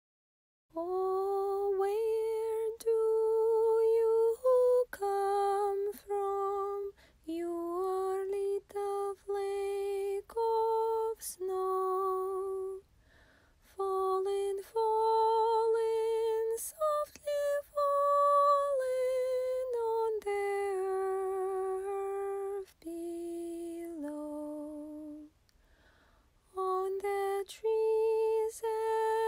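A woman's voice singing a slow tune alone, without instruments, in held notes with brief pauses about halfway through and near the end.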